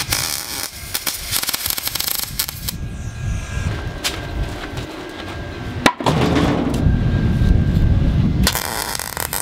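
MIG welding arc on aluminium pipe crackling and spitting in bursts as tack welds are laid around a pontoon tube joint, with a single sharp click about six seconds in.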